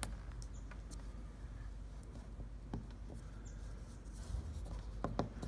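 A few light clicks and taps over a low steady hum, two of them close together near the end.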